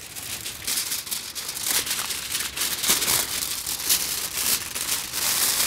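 Wide heavy-duty aluminium foil crinkling and rustling as a large sheet is handled and pulled up around a frame, a dense run of crackles that builds about a second in.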